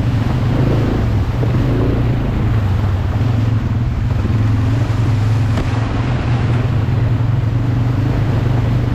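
ATV (quad bike) engine running steadily while riding, with wind noise on the microphone.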